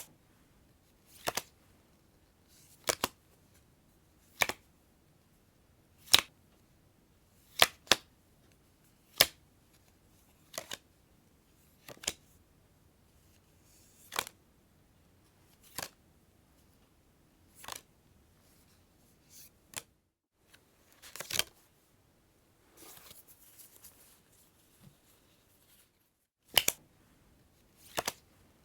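Playing cards being snapped or slapped down one at a time: a string of sharp, crisp snaps about every one and a half seconds, some of them doubled, with a brief soft rustle of cards a little before the end.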